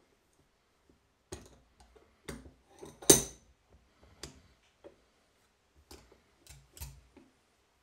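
Scattered metal clicks and knocks as a lawn mower clutch housing and bearings are set between the steel jaws of a bench vise, with one sharper, louder knock about three seconds in.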